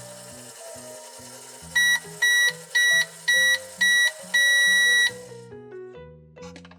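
Microwave beeper sounding five short beeps and then one longer beep, a steady high electronic tone, signalling that the timer has run out. Children's background music plays underneath.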